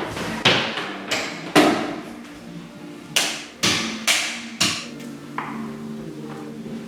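Hammer blows: a series of sharp strikes at uneven intervals, each with a short ring.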